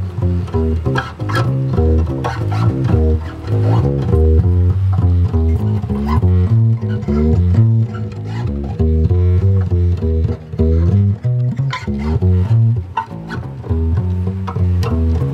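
Homemade upright double bass built from a grandfather clock case, its strings plucked in a steady run of quick bass notes. It is amplified through a magnetic sound-hole pickup into a small combo amp.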